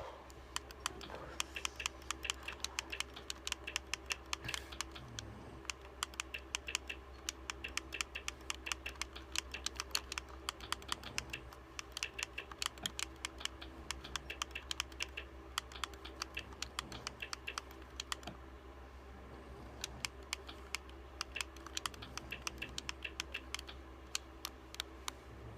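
Rapid, irregular clicking of keys being typed, with a short pause about two-thirds of the way through, over a steady low hum.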